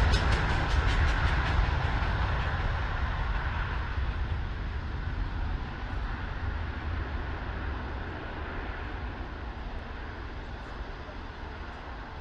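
Jet airliner's engines, a deep rumble that fades steadily as the aircraft moves away.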